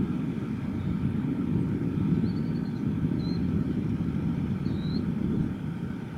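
Boeing 787-9 taxiing at low power: a steady low rumble from its jet engines, with a faint steady whine over it. A few short, faint high chirps come through about two, three and five seconds in.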